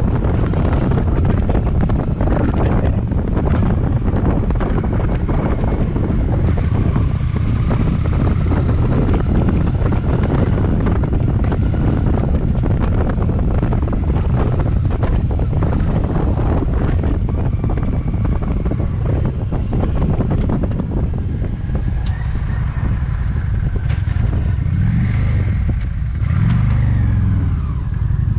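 Honda Shadow Phantom V-twin motorcycle being ridden at speed, its engine running under heavy wind buffeting on the microphone. Near the end the engine's pitch falls and rises a few times as the revs change.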